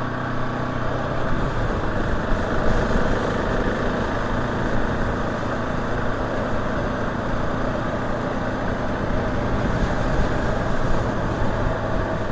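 KTM 690 SMC R supermoto's single-cylinder engine running steadily under way, mixed with wind and road noise.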